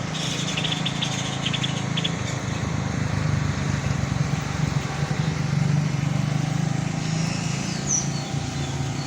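A motor vehicle's engine running, a steady low rumble, with a few quick high chirps in the first two seconds.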